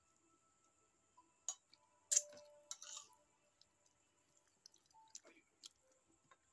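Crunching of krupuk (crispy fried crackers) being bitten and chewed close to the mouth: a few sharp, crackly crunches from about a second and a half to three seconds in, then faint clicks of chewing.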